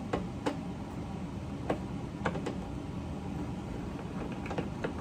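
A handful of short, sharp clicks and taps, irregularly spaced, from a Phillips screwdriver working out the screws under a car door panel's armrest, over a steady low hum.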